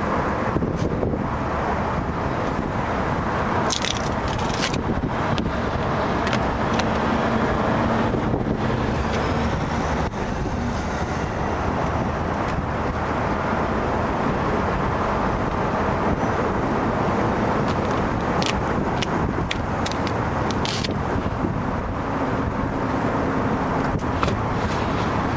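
Steady vehicle rumble and hiss throughout, with a few faint scattered clicks.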